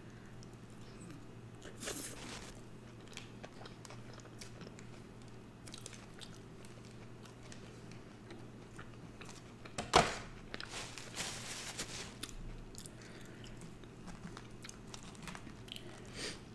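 Close-up, quiet chewing and biting of a cheeseburger, with small wet clicks of the mouth. About ten seconds in comes a sharp click followed by a couple of seconds of rustling.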